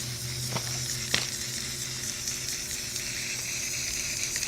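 Aerosol can of blue temporary hair-dye spray hissing steadily as it is sprayed onto a child's hair, with a sharp click about a second in.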